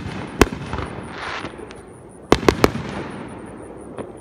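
Aerial fireworks going off: a sharp bang, a crackling hiss about a second in, then three quick bangs about two and a half seconds in, their echo fading away.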